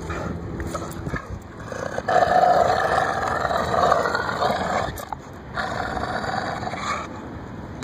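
Pit bull-type dogs growling in play while tugging a stick between them: a long growl from about two seconds in, then a shorter one after a brief pause.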